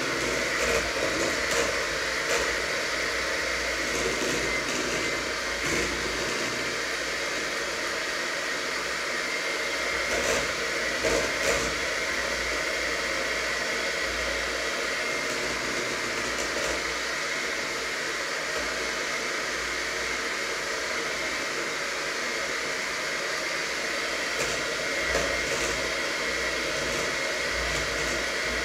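A fan running steadily with a faint high whine, and a few clinks of kitchen utensils.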